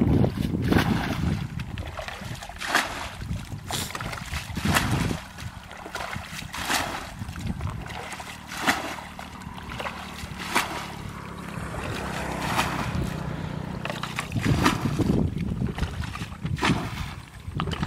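Water splashing as a plastic bucket is scooped through a shallow muddy pool and its load thrown out, about once every one to two seconds: bailing the pool dry to catch fish. Wind buffets the microphone at the start and again near the end.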